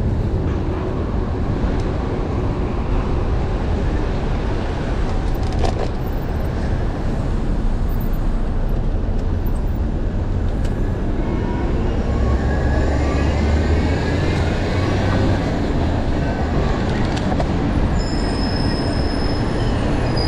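Heavy city street traffic close by: cars and a city bus running, with a deeper engine rumble and a rising whine about twelve seconds in as the bus pulls away, and a high-pitched brake squeal near the end.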